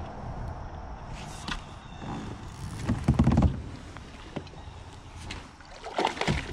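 Knocks and clicks on a plastic fishing kayak's hull, with a heavier thump about three seconds in, and a small splash near the end as a hooked fish is brought alongside.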